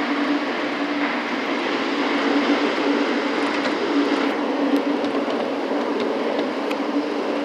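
Gateway Arch tram capsule descending along its track inside the arch leg: a steady mechanical running noise with a constant low hum.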